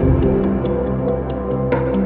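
Background music with a sustained bass line and a light, regular ticking beat.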